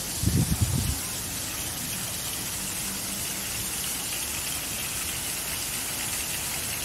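Steady rushing hiss of a plaza fountain's water jet splashing into its basin. A brief low rumble in the first second stands out above it.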